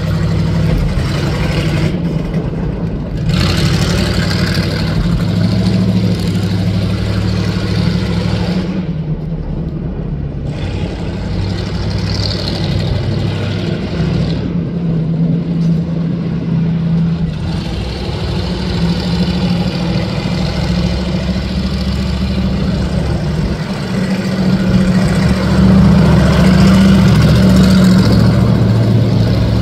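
Car engines running at low speed as show cars drive slowly by, the engine note shifting now and then; louder in the last few seconds.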